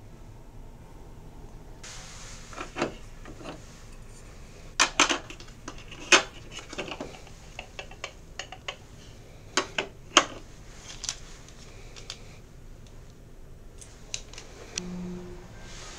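A ceramic tea cup and other small items on a counter being handled, picked up and set down, giving a series of sharp clinks and knocks, loudest about five, six and ten seconds in. A short low tone sounds near the end.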